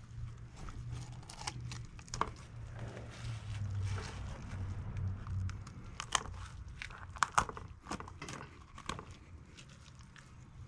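Fillet knife cutting an opaleye fillet away from the backbone and ribs on a wooden cutting board: soft slicing and crackling through flesh and skin, with sharp clicks as the blade catches on the rib bones, thickest in the second half. A low hum runs under the first half.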